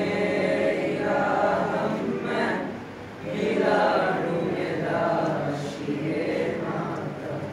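A group of young voices singing together in unison, phrase by phrase, with a short break about three seconds in.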